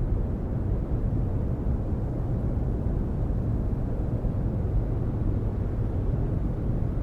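Steady low rumble of distant ocean surf, with no bird calls or other distinct sounds.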